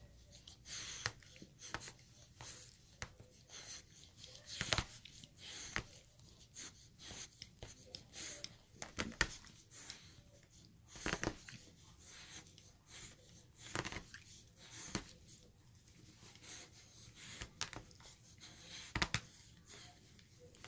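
A dog chewing and tearing at a toy: irregular crunches, snaps and ripping sounds, with a few louder sharp cracks.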